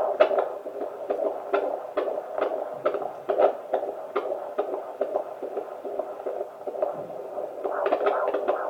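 Fetal heartbeat at 28 weeks heard through a handheld fetal Doppler: a fast pulsing whoosh, about two beats a second, over a steady hum. It is not very clear and fades in the middle, as the baby keeps moving away from the probe, then comes back stronger near the end.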